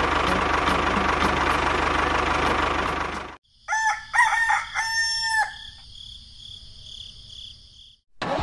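The small electric motor of a miniature model tractor running with a steady whirring rattle, cut off abruptly about three seconds in. A rooster then crows, followed by faint, steady high-pitched chirping.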